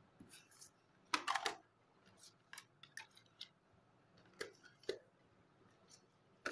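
Light handling of cardboard box parts and paper inserts on a table: a run of short clicks, taps and rustles, loudest in a cluster a little over a second in, then scattered single taps.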